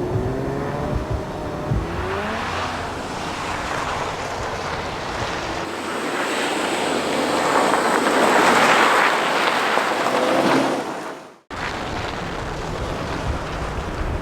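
Subaru Impreza GRB rally car's engine revving up, then a rush of noise that builds loudest as the car passes close on the snow stage. About three-quarters of the way through the sound cuts off abruptly, and a quieter steady windy background follows.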